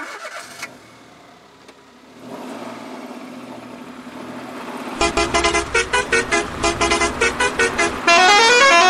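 Intro sound effect of vehicle sounds: a steady low rumble builds, then about five seconds in come rapid, loud car-horn-like toots, about four to five a second, ending in a quick rising run of tones.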